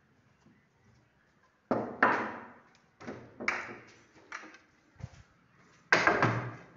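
About half a dozen sharp knocks or bangs in a small room, each ringing out briefly, with a duller thud among them and a louder cluster near the end.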